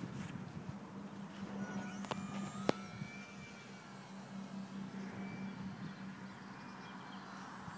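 Faint whine of a micro electric RC plane's motor and propeller as it climbs away and turns, over steady outdoor wind noise and hum. A single sharp click about two and a half seconds in.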